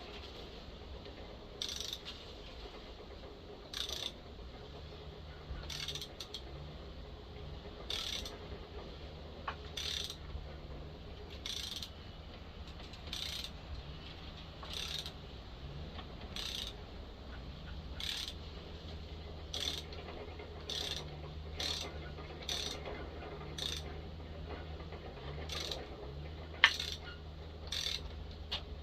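Ratchet handle clicking, one short click every second or two, as a greased spark-plug thread-repair tap is turned into a chainsaw cylinder, cutting new threads. One click near the end is louder, and a low steady hum runs underneath.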